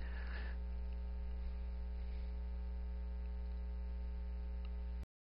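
Steady electrical mains hum, a low drone with faint higher overtones and light hiss, cutting off abruptly to silence near the end.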